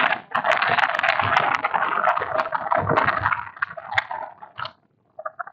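Stylus scratching continuously across a drawing tablet as a line is drawn, a dense scratchy rubbing with small clicks in it. It stops about three and a half seconds in and is followed by a few light taps.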